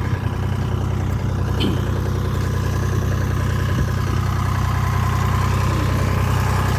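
Engine of heavy roadwork machinery idling steadily.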